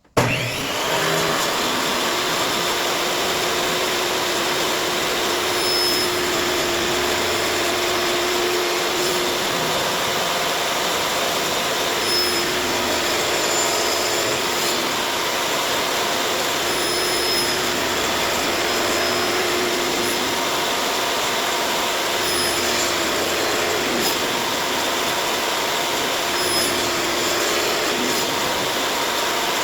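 Electric woodshop machine motor starting abruptly and then running loud and steady without a break.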